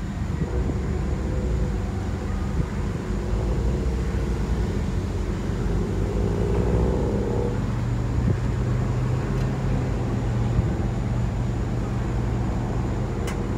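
An engine running steadily with a low hum, its pitch rising briefly about six seconds in before settling into a lower, stronger drone.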